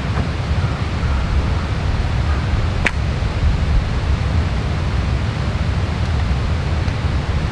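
Steady rushing wind noise with a heavy, fluttering low rumble and a fainter hiss above it. There is one sharp click about three seconds in.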